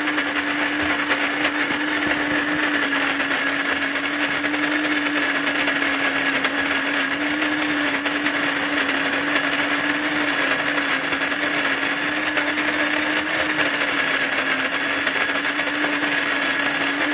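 Melitta Molino electric burr coffee grinder running steadily as it grinds coffee beans: a constant motor whine that holds one pitch throughout.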